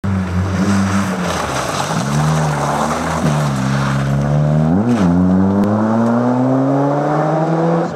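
Mazda 323 GTX rally car's turbocharged four-cylinder engine revving hard under load as the car powers along a loose, snowy stage. The pitch rises and falls through the first half, jumps briefly just before the midpoint, then climbs steadily as the car pulls away.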